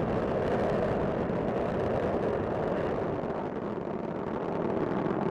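Space Shuttle Discovery's solid rocket boosters and main engines during ascent: a steady, continuous rumble of rocket exhaust noise.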